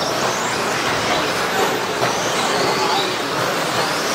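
A pack of 1:10 modified electric stadium trucks racing on dirt: the high whine of their brushless motors rising and falling over a steady rushing noise of the pack.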